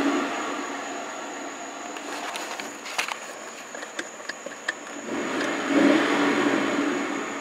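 2004 Mercury Marauder's 4.6-litre DOHC V8 heard from inside the cabin, settling back to idle from a rev and then blipped once about five seconds in to roughly 2,000 rpm before easing off again. A few light clicks come between about three and four and a half seconds in.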